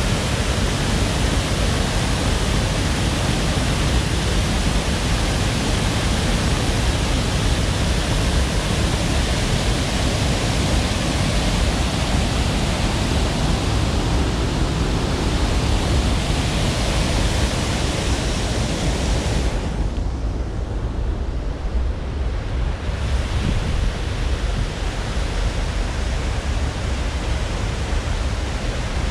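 Steady rushing noise of running water. About two-thirds of the way through, the hiss goes duller for some three seconds, then comes back.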